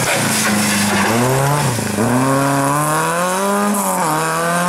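Volkswagen Golf Mk1 historic rally car's four-cylinder engine revving hard through a bend. The pitch climbs and drops back a few times as the driver lifts and accelerates, with one long climb in the middle.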